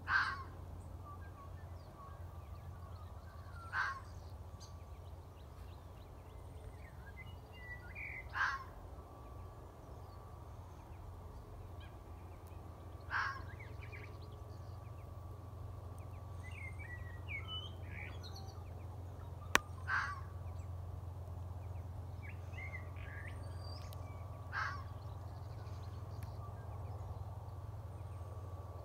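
A fox barking: six single, sharp barks spaced about four to five seconds apart, with faint birds chirping between them.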